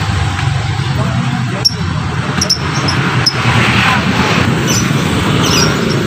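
Market ambience: a steady low rumble with background voices, and a few brief high chirps from caged birds.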